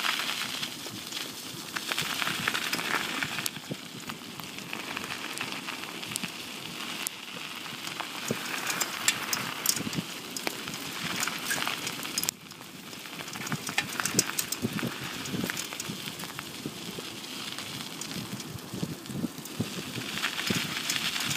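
Bicycle tyres rolling fast over a gravel road: a steady rushing noise with many small sharp clicks of grit, dipping briefly about twelve seconds in.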